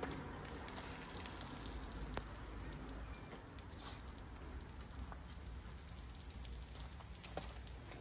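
Wash mitt scrubbing over soap-foamed car paint, a steady wet swishing with the fizzing crackle of suds and a few small clicks.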